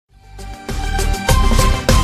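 Background music fading in, with a steady beat.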